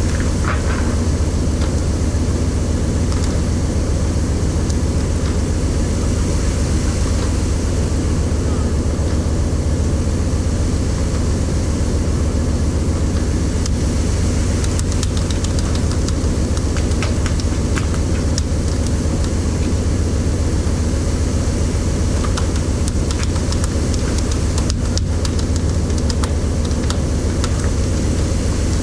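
Fishing boat's engine running steadily: a loud, even low drone with hiss above it and a few faint clicks scattered through.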